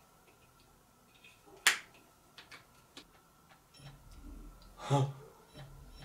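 Electrical connectors clicking together as an e-bike controller is wired to its battery, with one sharp snap about a couple of seconds in. About four seconds in, a low steady hum starts as the 8000 W hub motor begins to turn slowly, and a short loud burst comes just before the end.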